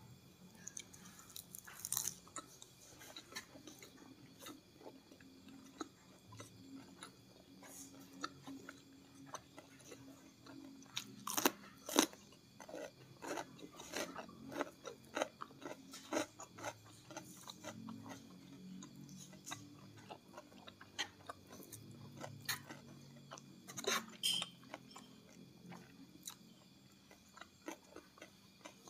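Close-miked chewing and crunching as a person eats rice, fish and crisp kerupuk crackers by hand. Sharp crunches are scattered throughout, the loudest about eleven to twelve seconds in and again around twenty-four seconds.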